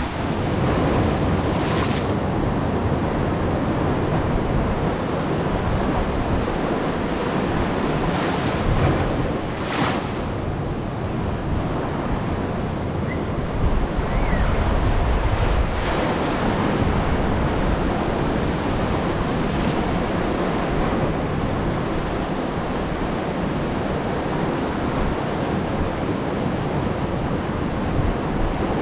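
Ocean waves surging and breaking in knee-deep shallows, a steady surf noise with a few louder rushes, with wind rumbling on the microphone.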